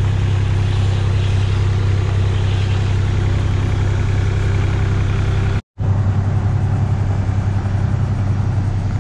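Linde forklift engine running steadily while carrying a heavy semi-truck cab on its raised forks, a loud low hum. The sound drops out completely for a split second a little over halfway through.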